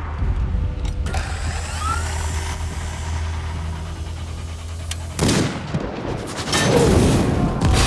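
Film battle sound effects: a steady low rumble with a few sharp cracks, then loud blasts of noise in the second half, as of gunfire and explosions.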